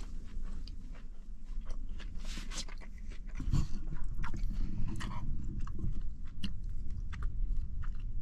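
A person chewing and eating close to the microphone, with irregular short clicks and crunches.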